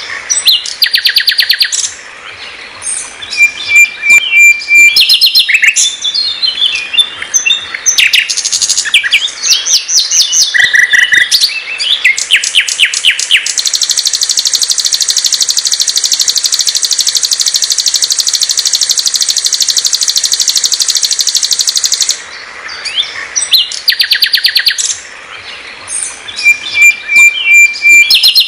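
Common nightingale (sikatan londo) singing a varied song of short rapid trills and note series, with a brief level whistle twice. From about 13 seconds in, a fast unbroken trill lasts some eight seconds.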